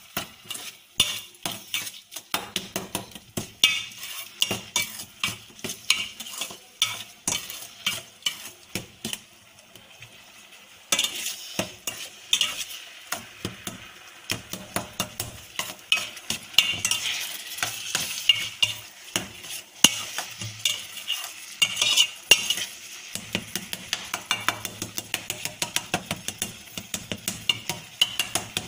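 A spoon stirs and scrapes crumbly curdled milk in a stainless steel pan on the stove, with quick irregular scrapes and knocks over a light sizzle as the curds cook down into milk kova. The stirring pauses briefly about nine seconds in.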